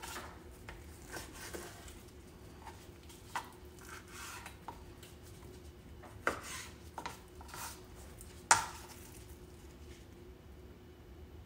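Knife cutting raw chicken breast into cubes on a cutting board: irregular soft taps and knocks of the blade on the board, with one sharper knock late on.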